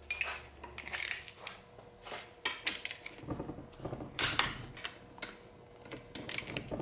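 Irregular metallic clicks and clinks of a socket and torque wrench being fitted and worked on the extension-housing bolts of a Borg-Warner T5 transmission as they are tightened down.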